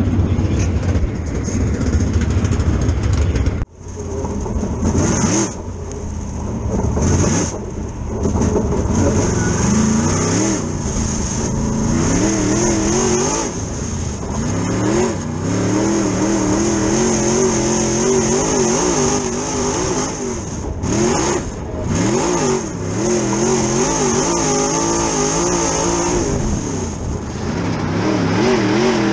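Dirt late model race car's V8 engine heard from inside the cockpit, revving up and dropping off again and again as the car runs laps, with a steady high whine on top. It opens with a deep low engine rumble that cuts off sharply about four seconds in.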